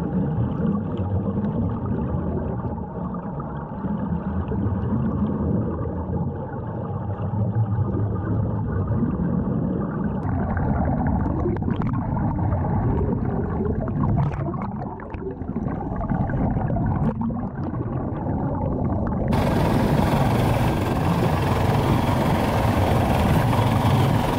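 Muffled underwater rumble of sea water heard through a submerged camera, with a few sharp knocks around the middle. After about 19 seconds it changes suddenly to the bright hiss and splash of water at the surface.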